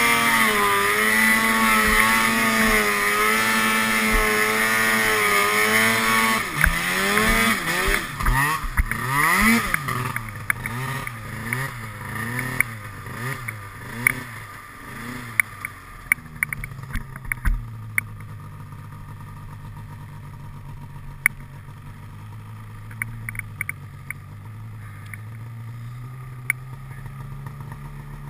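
Arctic Cat King Cat 900 snowmobile's two-stroke twin engine held at high revs under load on a deep-snow climb, then revving up and down for several seconds as the sled slows, and settling to a low, steady idle for the second half, with scattered clicks.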